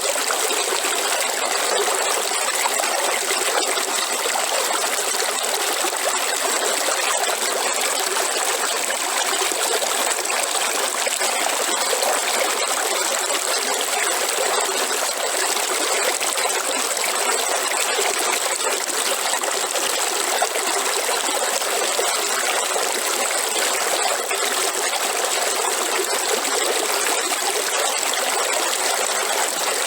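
River water running: a steady, even rush of trickling water that holds unchanged throughout.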